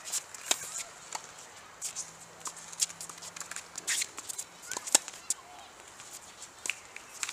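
Tennis balls struck by rackets and bouncing on a hard court during a rally: sharp pops a second or so apart, the loudest about five seconds in, mixed with shoe scuffs on the court.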